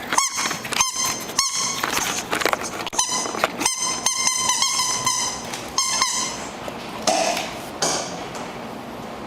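Squeaky rubber pig toy squeaking over and over in quick, irregular squeezes. The squeaks thin out and stop in the last second or so.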